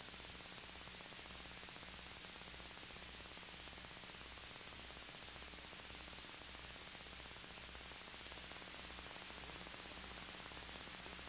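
Steady hiss with a faint low hum: the blank sound track of an old videotape transfer, no program audio.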